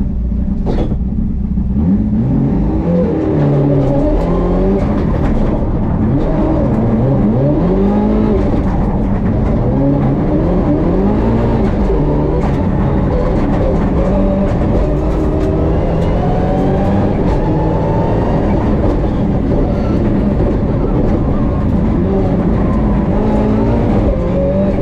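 Mitsubishi Lancer Evo IX's turbocharged 2.0-litre four-cylinder engine revving hard under load, its pitch climbing and dropping every second or two as the car accelerates and slows through the course. Heard from inside the cockpit, with a loud click about a second in.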